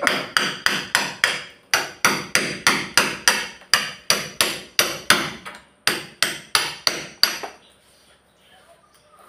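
Hammer blows struck in a steady rhythm of about three a second, each with a bright, ringing crack. The run breaks twice for a moment and stops near the end.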